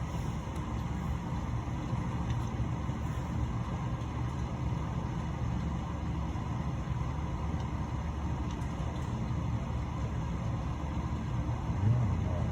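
Steady low rumble of background noise, with no distinct knocks or clicks.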